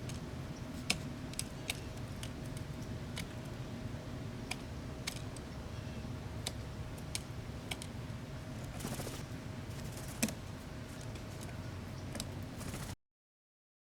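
About a dozen irregular sharp clicks and light taps over a steady low hum, with the loudest click about a second in and another about ten seconds in. The sound cuts off suddenly near the end.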